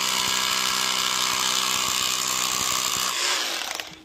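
Cordless drill boring a fixing hole for a wall plug into a concrete-block wall: a steady motor whine that spins down about three seconds in as the drill comes off.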